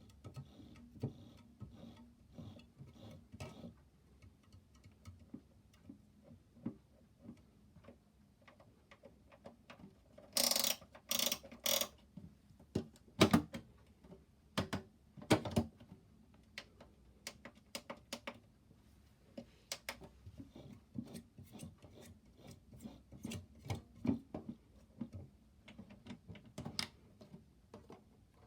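Irregular plastic clicks and knocks from a toy washing machine being handled, its parts clicking as they are worked, with a few louder rasping bursts about ten to twelve seconds in.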